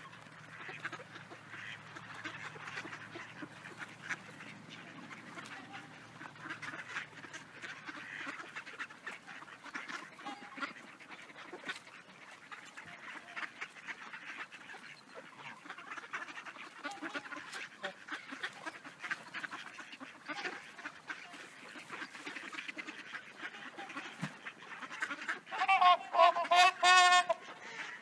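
A flock of mallard ducks and Canada geese calling, with a steady chatter of quacks. Near the end comes a short run of loud, repeated goose honks close by.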